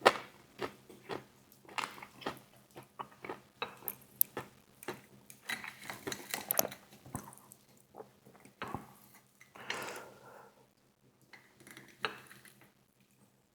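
Close-up eating sounds of KFC fried chicken wings: crisp skin crunching, chewing and mouth clicks in irregular bursts, thinning out near the end. Light clatter from handling the food and its container is mixed in.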